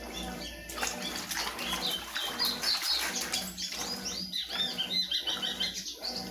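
Water churning and splashing in the tub of a Consul CWS 12 kg washing machine, with a low steady hum underneath. A bird chirps rapidly and repeatedly from about two seconds in until near the end.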